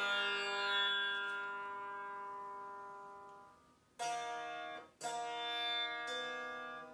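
Tanpura strings plucked in turn for a drone. The first notes ring long and fade almost away before fresh plucks come about four seconds in and again a second later.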